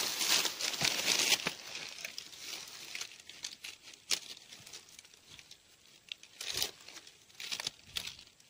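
Rustling and crackling, loudest in the first second and a half, then fainter with scattered sharp snaps.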